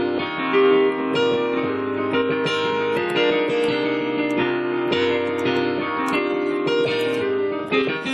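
Instrumental music: piano chords struck in a steady rhythm, with no singing.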